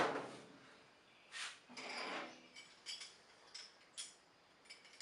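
Light metal clinks, rattles and ticks from tool-chest hardware being handled while handles are fitted, with two longer scrapes or rattles early on followed by a series of short clicks.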